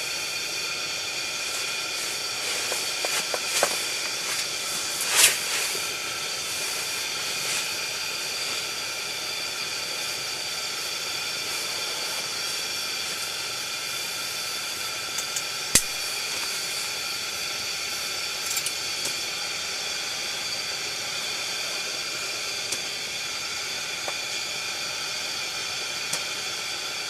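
Steady hiss of a pressure lantern burning, with a few scattered clicks, the sharpest about sixteen seconds in.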